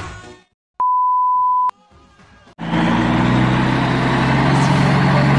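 Intro music fading out, then a single steady electronic beep lasting about a second. About two and a half seconds in, a loud steady outdoor noise with a low hum starts and carries on.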